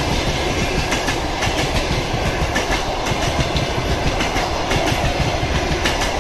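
Blue passenger train coaches rolling past on the track: a steady rumble with the clickety-clack of the wheels over the rail joints.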